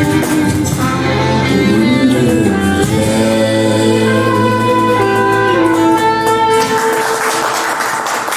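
Small acoustic band playing the closing held notes of a song: acoustic and electric guitar, double bass and trumpet, with a sung line. The music stops about seven seconds in and clapping begins.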